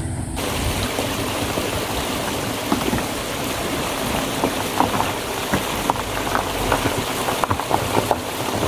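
Steady hiss of water, like rain or running water, with scattered drop-like ticks; it starts abruptly just after the beginning.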